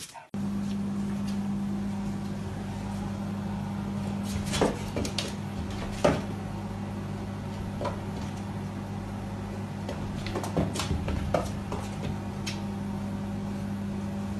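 A steady low electrical hum throughout, with a handful of light taps and knocks scattered through it as a cat paws at a mirrored door.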